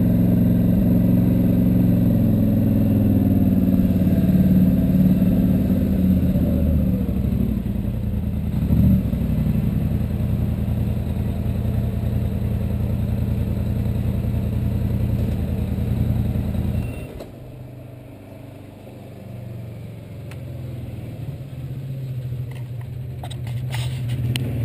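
ATV engine running at low speed and idling, with a steady low hum, then shut off about 17 seconds in. A fainter low hum carries on afterwards and grows slightly louder near the end.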